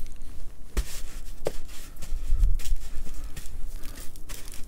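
Coarse salt rustling and crunching as pieces of raw pork neck are pressed into and rolled in it inside a plastic container, with a few sharp taps from the handling.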